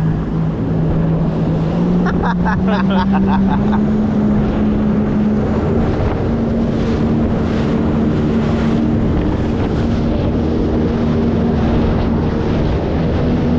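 Jet ski engine running under way, its pitch climbing over the first several seconds as it speeds up, then holding steady and rising slightly again near the end. Wind buffets the microphone and water rushes past the hull.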